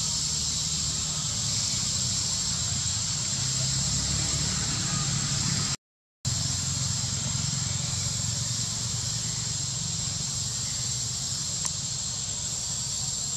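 Steady, high-pitched drone of forest insects, with a low rumble under it. The sound drops out for a moment about six seconds in.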